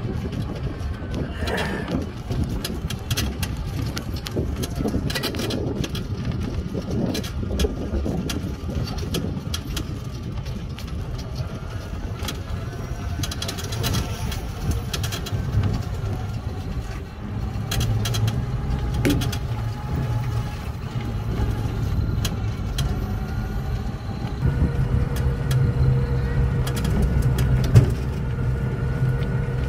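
Wind and road rumble from riding in a small open-sided electric car, with scattered clicks and rattles. A steady whine joins about 24 seconds in.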